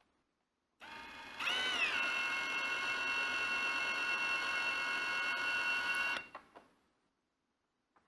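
Cordless drill-driver motor running for about five seconds, starting slowly, then speeding up with a rising whine about a second and a half in and holding a steady speed before stopping, as a part is unscrewed. A faint click near the end.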